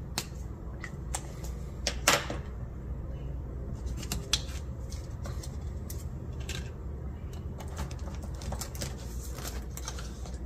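Hands handling paper cards, cash and a ring binder on a tabletop: scattered light taps, clicks and rustles, the loudest about two seconds in.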